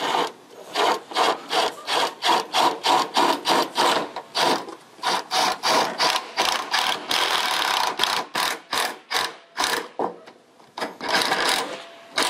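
Cordless drill/driver run in short repeated pulses, about three a second, against an aluminum gutter, with a steadier run of about a second midway, a pause, and another burst near the end.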